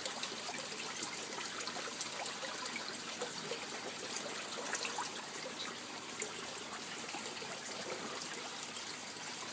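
Steady trickling and splashing of water circulating through an aquaponics system of fish tanks and grow beds, with scattered small drips.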